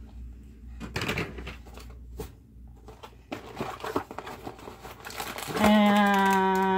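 A cardboard Lego set box being handled and its plastic parts bags rustled: scattered light crinkles and taps. Near the end a woman's voice holds one long, steady note, louder than the rustling.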